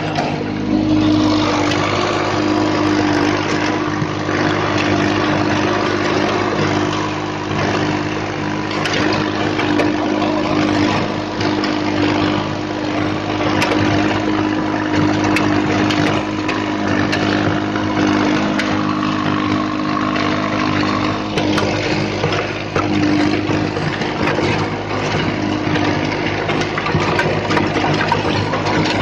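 VST Mitsubishi Shakti VT 224 mini tractor's 22 hp diesel engine running steadily under load, driving a 16-blade rotavator through the soil.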